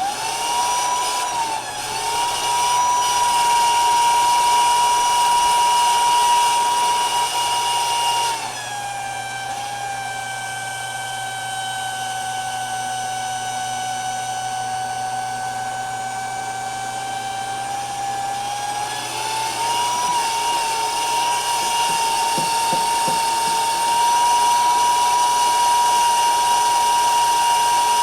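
Small electric water pump switching on and running with a steady high whine; its pitch drops about eight seconds in and climbs back up at about nineteen seconds. A kink in the hose is keeping it from moving water.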